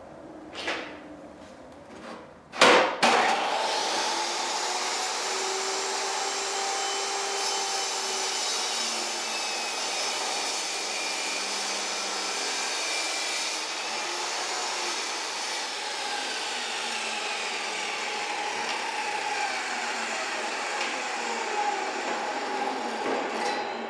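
Ridgid jobsite table saw switched on with a sharp start about three seconds in, then running with a steady high motor whine for about twenty seconds while a pine board is ripped through the blade. It shuts off near the end.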